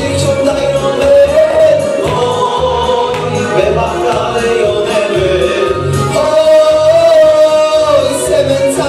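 A man singing into a handheld microphone over an amplified backing track with a regular bass beat, holding long notes.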